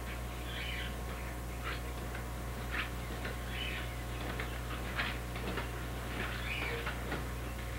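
A steady low electrical hum on an old home-video recording, with about half a dozen faint, short, soft hissy sounds scattered through it.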